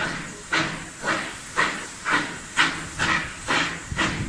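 Steam locomotive exhaust chuffing in a steady rhythm, about two chuffs a second, as the engine works hauling its train.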